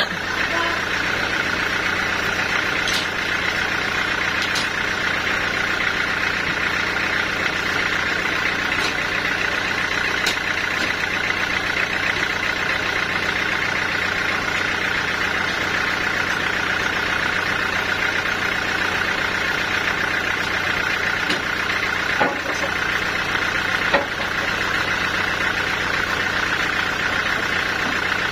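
Sawmill saw machinery running steadily: a constant low hum with a strong steady higher tone over it, broken by a few short knocks, two louder ones late on.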